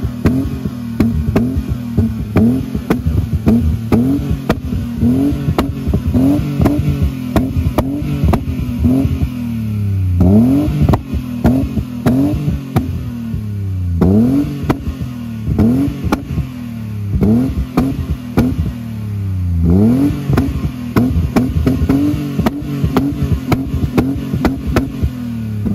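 BMW E28 engine revved at standstill in short throttle blips, heard close at its twin-tip exhaust: the note rises quickly and falls back about once a second.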